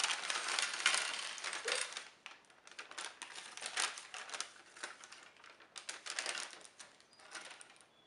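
Paper bag and plastic packets rustling and crinkling as they are handled, with irregular small clicks of the items inside; busiest in the first two seconds, then sparser.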